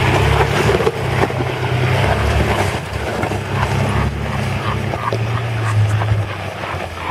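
Nissan GQ Patrol four-wheel drive's engine running low and steady as it crawls up a rutted dirt climb, its pitch rising and falling a little with the throttle.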